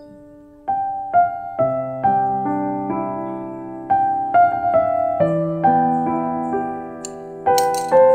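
Background piano music: a gentle melody of single struck notes over sustained lower notes, each note fading after it is played.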